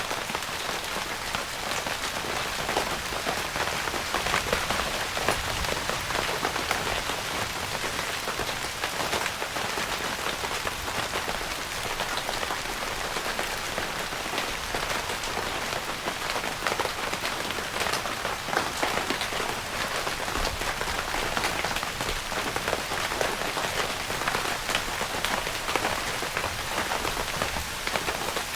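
Steady rain pattering on a tent's fabric roof, heard from inside the tent as a dense even hiss flecked with individual drop ticks.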